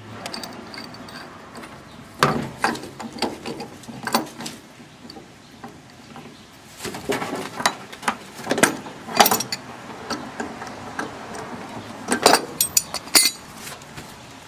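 Irregular sharp clicks and metal knocks of hand tools and metal parts as a cast aluminum part is worked loose and taken off a water heater. They come in short clusters, several times.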